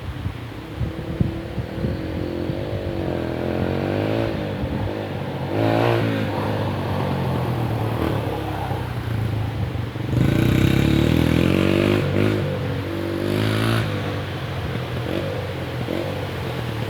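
Dirt bike engine revving up and down as it is ridden through mud, the revs rising and falling repeatedly and loudest for a few seconds past the middle.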